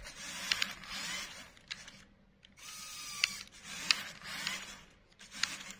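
LEGO Technic RC car's electric motors and gear train whirring in bursts as the car drives back and forth, with a short pause about two seconds in and a few sharp clicks scattered through.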